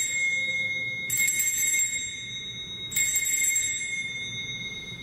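Sanctus bell rung at the elevation of the chalice: three strikes, one just before, one about a second in and one about three seconds in, each ringing on and slowly fading.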